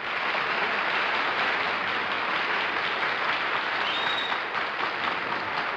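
Studio audience applauding steadily, starting all at once.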